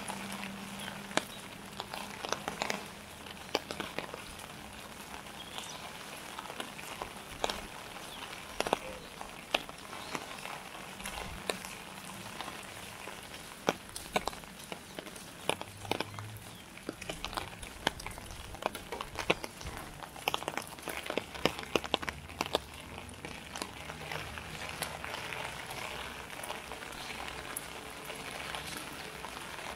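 Light rain falling, with irregular sharp drips and drops striking hard surfaces close by over a steady patter.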